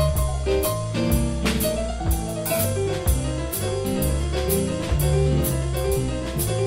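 Live jazz band playing: piano or keyboard chords over a low bass line that moves note to note, with drum kit and regular cymbal hits.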